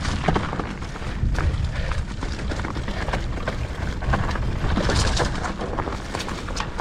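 Mountain bike riding down a rough, rocky trail: a steady rumble of wind on the microphone and tyres on dirt, with frequent short clacks and rattles from the bike over rocks.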